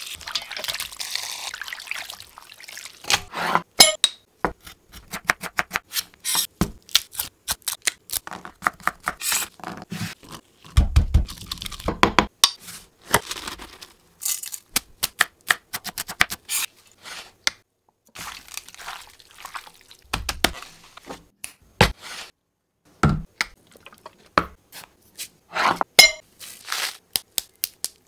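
Close-up food-prep sounds in quick succession. It opens with water pouring onto raw chicken pieces in a steel bowl. Then come many short crunches, clicks and taps as ingredients are handled, including a gloved hand scooping coarse sea salt from a plastic jar.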